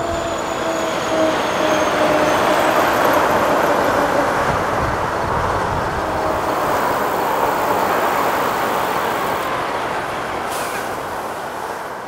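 Road traffic passing on a country road: a continuous rush of tyre and engine noise with a faint falling whine at the start. It swells over the first few seconds, holds, then begins to fade away near the end.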